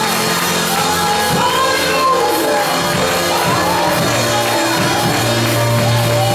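Gospel choir music: a keyboard holds long sustained chords while voices sing and call out over it.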